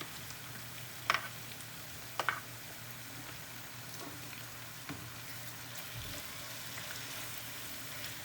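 Calamari, onion and fish pieces sizzling in hot oil in a pan, with a few sharp clicks about one and two seconds in.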